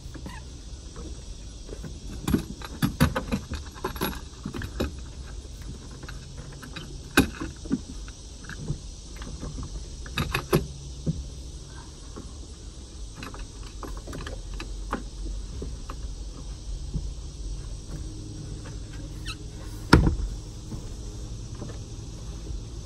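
Plywood platform panels knocking and bumping as they are handled and laid down in a car's cargo area: scattered wooden knocks and clicks, several close together in the first few seconds, with the loudest a single sharp knock about 20 seconds in.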